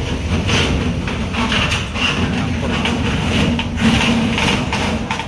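Heavy truck's diesel engine running as the truck creeps forward under load onto a ferry's loading ramp, with a clatter of short sharp knocks over the steady low drone.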